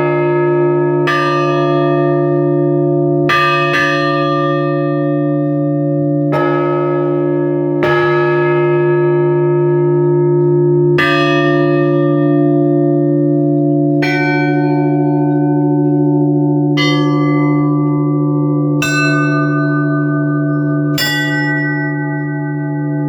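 Church bells for a funeral service, struck one stroke at a time, different bells in turn, about ten strokes two to three seconds apart. Each stroke rings on and overlaps the next over a steady low hum.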